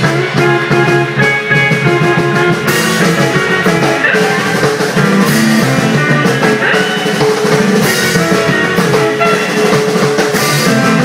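Live surf rock instrumental: electric guitar playing the lead melody over electric bass and a drum kit, with cymbals crashing in about three seconds in.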